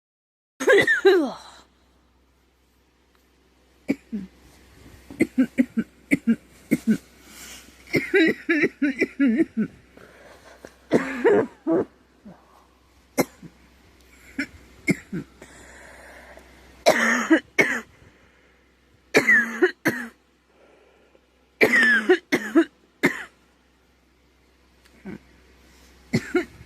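A girl coughing over and over: one hard cough just after the start, then a long run of short, rapid coughs, then separate bouts of two or three coughs spaced several seconds apart.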